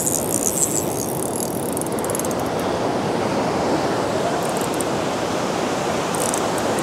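Surf washing steadily onto the beach, with short spells of light ticking from a Shimano Saragosa 14000 spinning reel as its handle is turned: for about the first two seconds, then twice more briefly later.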